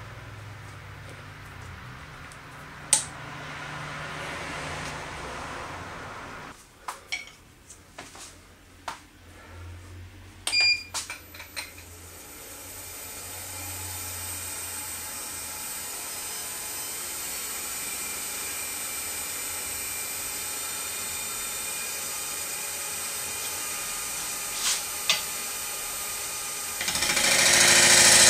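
Metal clicks and knocks of a scroll chuck being tightened with a chuck key and fitted to a wood lathe. Then a Record Power lathe starts and runs steadily with a large bowl blank. Near the end a turning tool bites into the spinning plane-wood blank, and the cutting noise comes in much louder.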